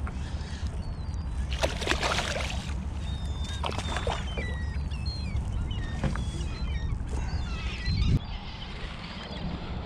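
A hooked small striped bass thrashing and splashing at the surface beside a kayak, in bursts about two and four seconds in, over a steady low rumble. Short chirping bird calls come and go through the middle, and a dull thump sounds near the end.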